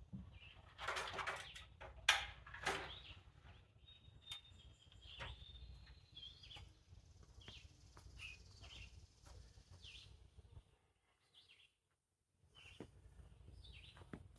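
Birds chirping in short calls over a low steady background, with a few louder short noises in the first three seconds.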